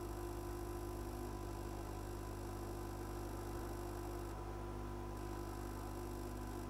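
Steady electrical hum of workbench equipment, several constant tones with no change.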